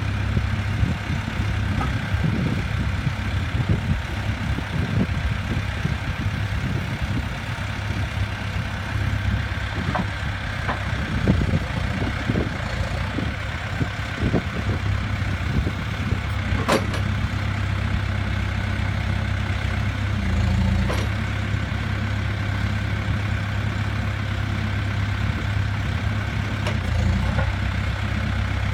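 Case 580N backhoe loader's four-cylinder diesel engine running steadily, with a few sharp knocks and one brief swell in engine note about two-thirds of the way through.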